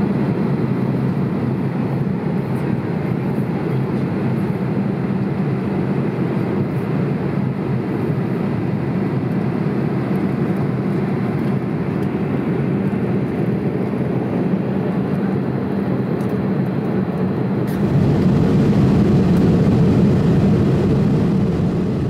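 Steady in-flight cabin noise of a Boeing 787-8 Dreamliner: an even low rush of airflow and engine drone. It changes abruptly to a slightly louder, deeper rush near the end.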